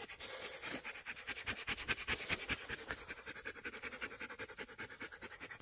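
A dog panting hard, a quick steady run of breaths that grows a little louder in the middle and fades near the end.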